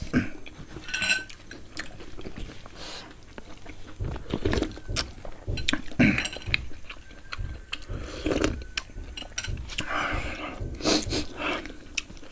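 Close-up eating sounds: wet chewing and smacking in irregular bursts, with roasted pig head meat being torn off by hand.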